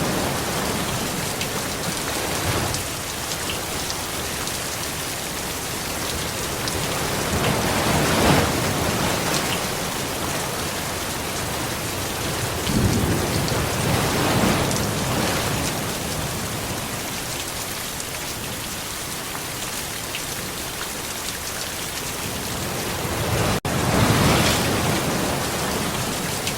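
Steady heavy rain falling, with low rolling rumbles of thunder swelling up three times, about a third of the way in, midway and near the end.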